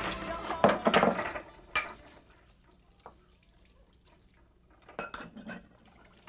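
Dishes and utensils knocking and clinking while being washed at a kitchen sink: several clatters in the first two seconds, a single knock about three seconds in, and another cluster about five seconds in.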